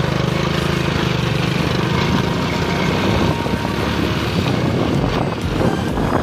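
Heavy truck's engine running steadily with a fast, even pulse, over road and wind noise.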